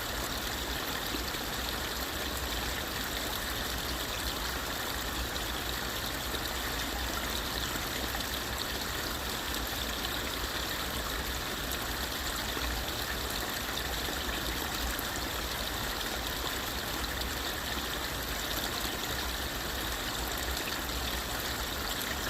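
Creek water trickling and flowing steadily, an even, unbroken rush of water.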